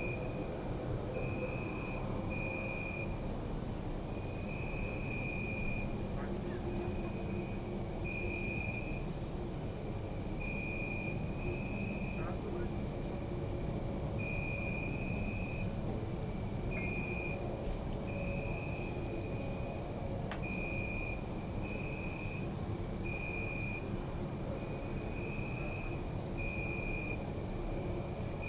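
Crickets chirping: a steady high-pitched insect chorus, with a second cricket trilling in short bursts about once a second at a lower pitch, over a steady low background rumble.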